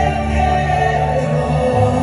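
Live pop ballad played by a band with orchestra, heard from the audience: held chords over a steady bass line.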